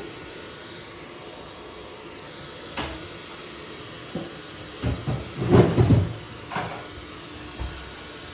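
Dreame robot vacuum running with a steady hum, broken by a few knocks and bumps. The loudest cluster of knocks comes about five to six seconds in.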